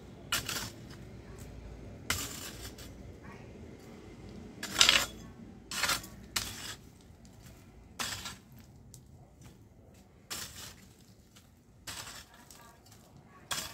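A long-handled digging tool chopping into dry, stony soil: about nine sharp, clinking strikes, a second or two apart.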